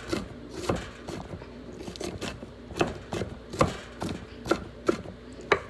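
Kitchen knife chopping vegetables on a wooden cutting board: irregular sharp knocks of the blade on the board, about two a second.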